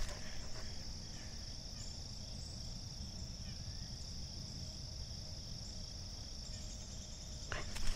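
A steady, high-pitched chorus of insects trilling without a break, over a low rumble, with a sharp knock near the end.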